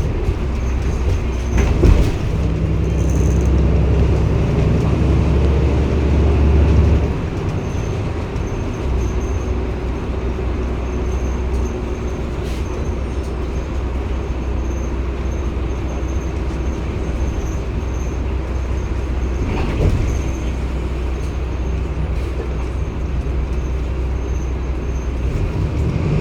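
Cummins ISB six-cylinder diesel of a NEW BS090 city bus running under way with a steady low hum. It is louder and pulls harder for a few seconds early on, then settles to an even drone, with a sharp knock about two seconds in and another about twenty seconds in.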